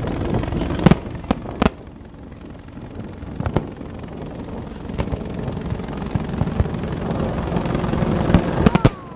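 Fireworks going off: scattered sharp bangs, a few near the start, single ones in the middle and a quick cluster near the end, over a continuous low rumble.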